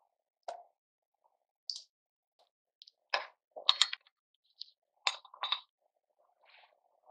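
Irregular knocks and clinks of kitchen utensils and dishes, about half a dozen short separate strikes, with the loudest pair a little past the middle.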